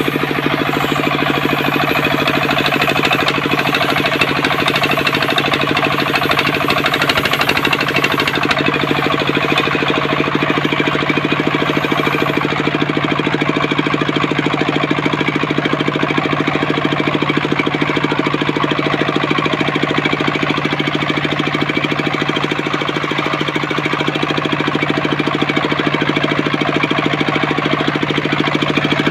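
Engine-driven homemade circular saw rig running steadily at constant speed, a continuous machine drone with a higher whirring layer.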